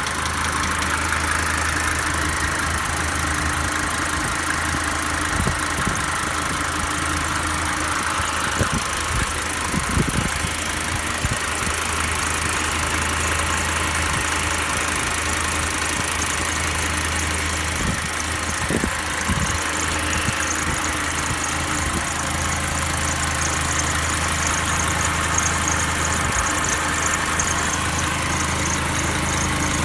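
Mercedes-Benz 190 D (W201) OM602 naturally aspirated five-cylinder diesel idling steadily.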